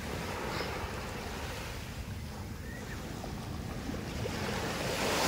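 Small waves breaking and washing up the sandy shore, a steady wash of surf with wind rumbling on the microphone; a wave rushing in grows louder near the end.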